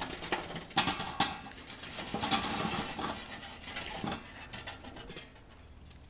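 Hot charcoal clattering out of a metal chimney starter into a Weber kettle grill's charcoal basket. There are a few sharp knocks in the first second or so, then a run of clinking and rattling of coals on metal that dies away after about four seconds.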